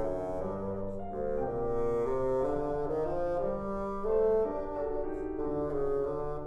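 Bassoon and piano playing a classical chamber piece together: the bassoon holding sustained notes over a moving piano part, with a louder swell about four seconds in.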